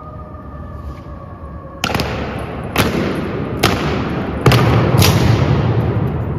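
Heavy stamps of ceremonial guards' boots on a stone floor, each one echoing long in a large hall. There are five strikes: the first three about a second apart, the last two closer together.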